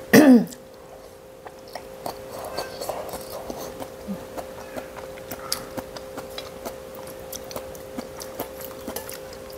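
A person chewing mouthfuls of noodles, with scattered small clicks of chopsticks against a stainless steel bowl, over a steady faint hum.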